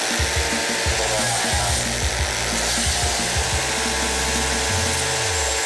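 Background music with a steady bass line, over the steady noise of a wood chipper running.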